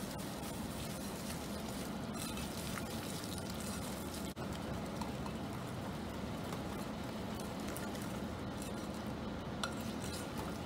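Wire whisk stirring a runny batter of shiratamako (glutinous rice flour), sugar and water in a glass bowl: a steady, even stirring sound, with a few faint clicks near the end.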